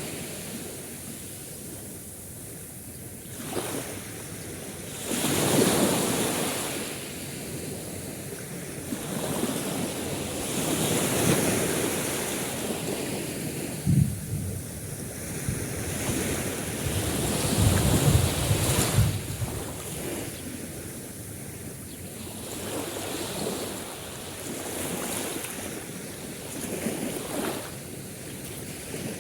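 Sea waves washing onto a shore, the surf swelling and fading every few seconds, with wind buffeting the microphone in a few low thumps partway through.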